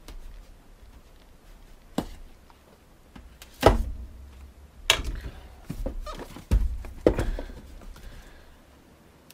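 Cardboard box being opened and handled on a desk: about five sharp knocks and thumps, the loudest nearly four seconds in, with cardboard sliding and scraping between them.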